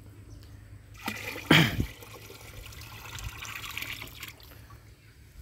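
Liquid poured from a rubber bucket into a partly filled plastic drum. It starts gushing about a second in with a loud splash, runs on for about three seconds, then stops.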